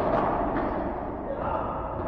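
Padel ball struck by a racket during a rally, a sharp pop about a split second in and a lighter hit shortly after, ringing in the hall, over a steady background murmur.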